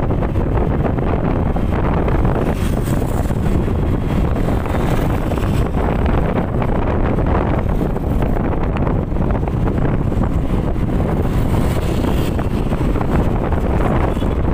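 Loud, steady wind rushing over the microphone while riding, with vehicle and road noise underneath.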